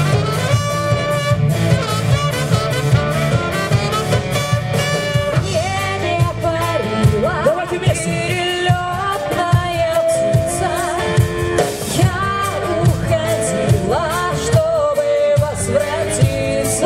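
Live cover band performing a pop song: a singer's voice over a steady beat of drums, bass and keyboards.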